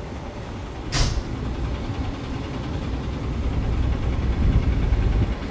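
Ride inside a city bus: a short hiss of released compressed air from the bus's air system about a second in, then the bus engine's low rumble growing louder as it pulls away, dropping off sharply just before the end.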